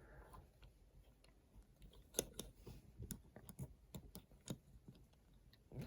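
Faint, scattered small plastic clicks from handling a Lego minifigure as its head is turned to show its other face.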